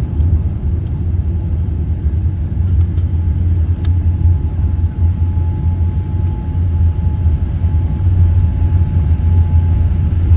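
Low, steady rumble of a Boeing 787 as heard inside the cabin on the ground after landing, with a faint steady tone joining about four seconds in and a single light click.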